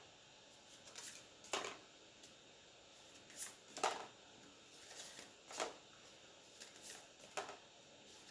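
Magic: The Gathering booster pack and its cards being handled: a scattering of short crinkles and card snaps, about seven over the span.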